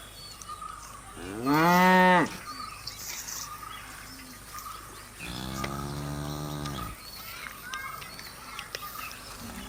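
Cattle mooing twice: a short, louder moo that rises and falls in pitch about a second in, then a longer, lower moo around five seconds in.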